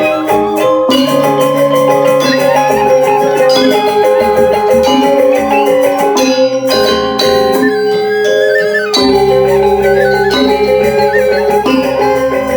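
Balinese gamelan music: bronze metallophones and gongs playing a fast, steady run of struck, ringing notes to accompany the Rejang dance.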